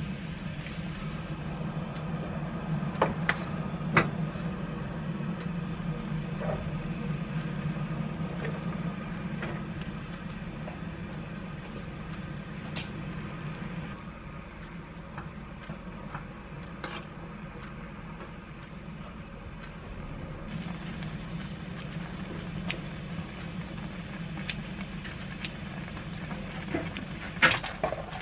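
A pot of broth boiling on a gas stove, with a steady low hum under the bubbling. A few sharp clinks of a utensil against the pot come a few seconds in and again near the end.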